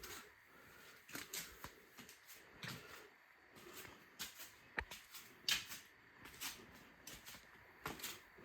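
Faint, scattered clicks and light knocks of handling noise, irregular, with a slightly louder knock about five and a half seconds in.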